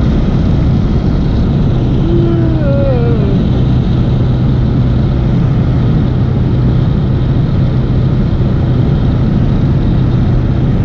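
Single-engine high-wing propeller plane taking off, its engine and propeller drone heard from inside the cabin, loud and steady as it rolls down the runway, lifts off and climbs.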